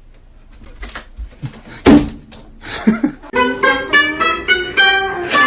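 A few knocks and one loud thump about two seconds in, then plucked guitar music starts with a quick run of notes.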